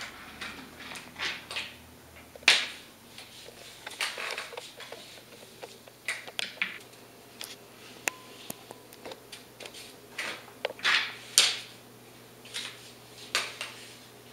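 Ink brush and stick strokes on paper: irregular sharp taps, scratches and swishes as they strike and drag across the sheet, a few strokes much louder than the rest. A faint steady low hum runs underneath.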